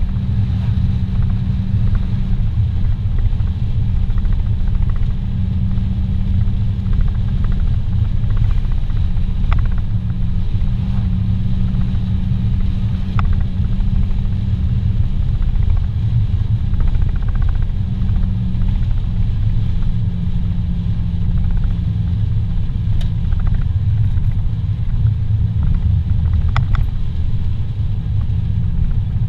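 Steady low rumble of a car's engine and tyres heard from inside the cabin while cruising on a paved highway, with a constant low hum and a few faint ticks.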